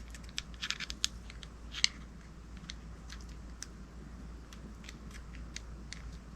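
Small fishing reel parts clicking against each other as they are handled and fitted together: a quick cluster of light clicks in the first two seconds, then faint scattered ticks.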